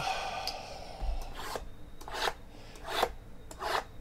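Hands rubbing and sliding against a stack of cardboard trading-card hobby boxes: four short scraping swishes, about two-thirds of a second apart.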